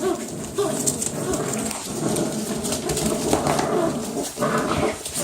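Six-week-old puppies growling and yipping in short repeated calls as they play-fight over a toy, with scrabbling noise under them.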